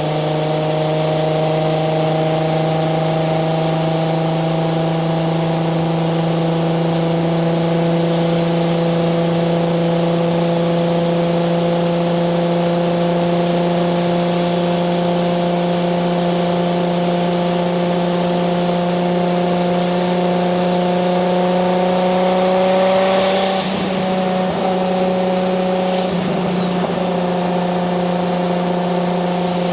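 Single-turbo 1JZ-GTE VVTi straight-six in a Nissan 240SX cruising under light throttle: a steady engine drone that slowly climbs in pitch, with a high turbo whistle above it. About 23 seconds in, the revs and the whistle rise sharply, then fall off suddenly with a short burst of noise as the throttle is lifted; a second brief dip follows a few seconds later, and the turbo whistle builds again near the end.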